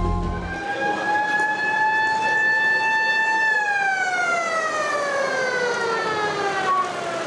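Ambulance siren sounding one long, slow wail: the pitch climbs gradually for about three seconds, then slides steadily down over the next four.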